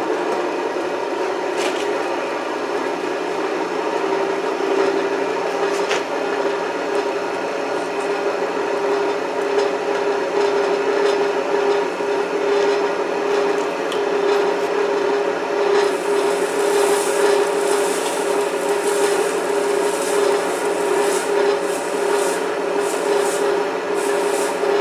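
Blacksmith's forge fire running with its blower on: a steady rushing roar with a hum in it. Light crackling joins in after about sixteen seconds.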